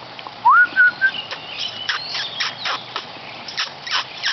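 Birds chirping: a rapid run of short, high chirps, with a rising whistled note about half a second in.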